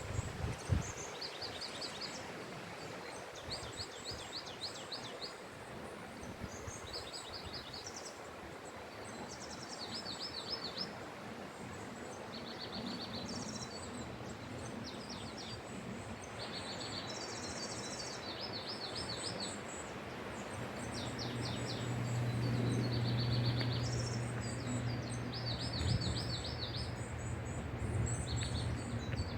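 Wind through a forest, a steady rushing, with small birds calling over it in short, high, repeated trills. From about two-thirds of the way in, a steady low hum joins.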